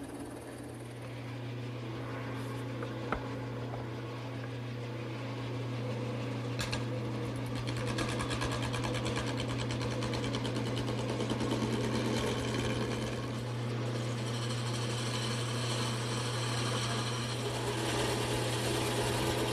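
Power drill turning a 7/8-inch Forstner bit and boring all the way through a wooden mallet-head blank. The motor hums steadily, and the cutting noise grows louder partway through.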